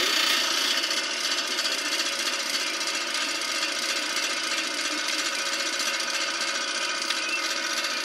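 Gas clothes dryer running with its burner lit, a steady even noise.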